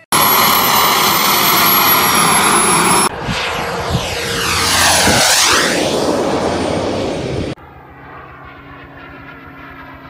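Radio-controlled model airplanes' motors in three abrupt cuts. First a loud, steady running sound with a high whine. Then a model plane passes close and loud, its sound sweeping down and back up. Last comes a fainter steady drone from a model flying high.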